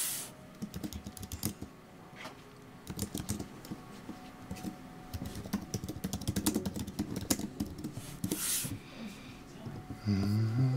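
Computer keyboard keys clacking in a quick, uneven run as a name is typed, with a brief hiss near the start and again about eight seconds in. A short, louder low hum that bends upward comes near the end.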